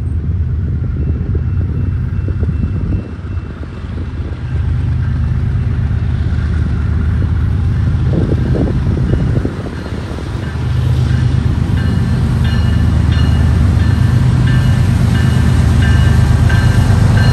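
Approaching BNSF freight train's diesel locomotives, a low rumble that grows louder as the train draws near.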